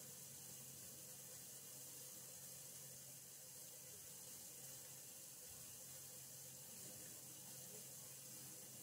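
Faint, steady hiss of water running through water pipes, left running to keep them from freezing, with a low steady hum underneath.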